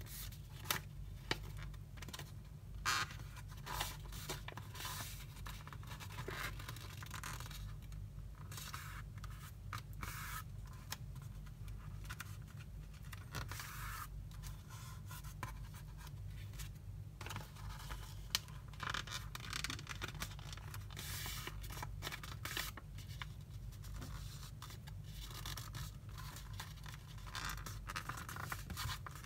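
A sheet of paper being folded and creased by hand on a cardboard surface: irregular rustling and scraping, with a few sharper snaps as creases are pressed flat, over a steady low hum.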